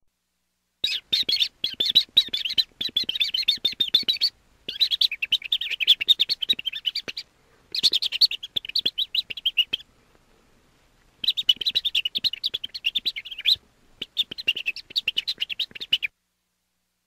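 Baby chick chirping: rapid, high-pitched peeps in five runs of a few seconds each, broken by short pauses.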